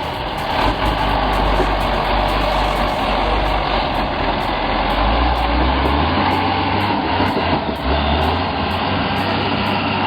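Unimog truck's diesel engine running under load, a steady low drone whose deep note shifts and swells about halfway through.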